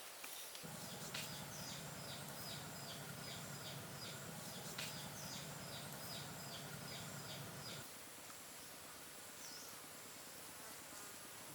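A high chirping call repeated rapidly, about three short downward chirps a second, over a faint low steady hum that stops about eight seconds in.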